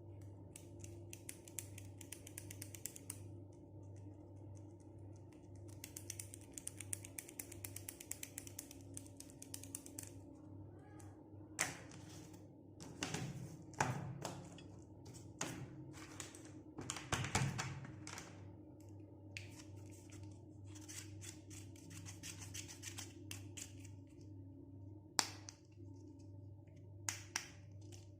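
Toy doctor-set pieces and packaging being handled: stretches of fine crackling rustle, then a series of sharp taps and clicks as small pieces are picked up and set down, over a steady low hum.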